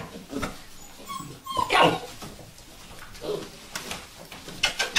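Young Vizsla puppies whimpering and yipping in short, high calls, the loudest about two seconds in, with a few light knocks as they scramble about.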